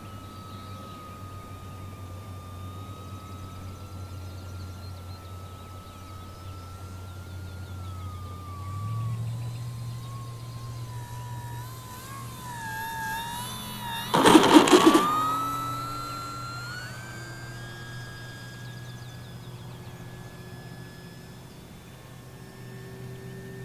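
Electric motor and propeller of an FMS 1500mm Cessna 182 RC model plane in flight: a steady whine that sags lower, then rises as the throttle comes up. About fourteen seconds in, with the plane down low at the runway, there is a loud, brief rattling burst of noise.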